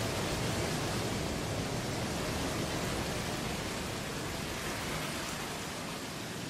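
Steady, even rushing noise like heavy rain or falling water, from the storm soundscape played over the venue's sound system, easing slightly toward the end.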